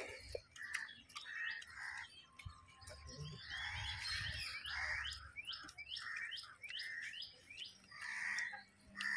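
Birds chirping over and over: short repeated calls, and in the middle a quick run of downward-sliding notes at about three a second.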